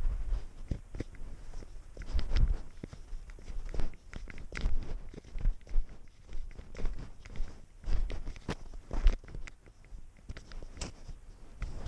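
A cat's paws crunching through snow in irregular soft steps, picked up close from a camera worn on the cat, with knocks as the camera jostles.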